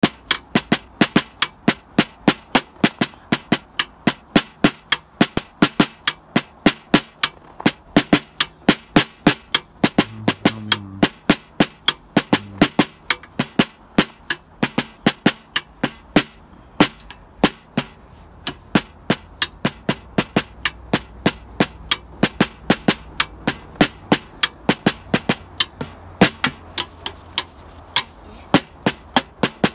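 Snare drum beaten with wooden drumsticks in a steady, even rhythm of about three to four strokes a second, pausing briefly just past halfway. A DVD case lies on the batter head as the sticks strike it.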